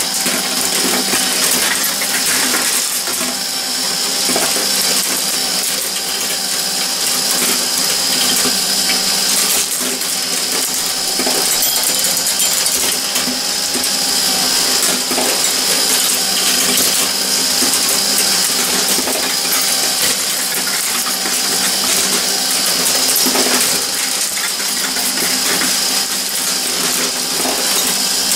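Glass marbles rolling and clicking against the metal plates, strips and bolt heads of a Meccano marble machine, a continuous rattle of small metallic clicks over the steady running of the machine's mechanism.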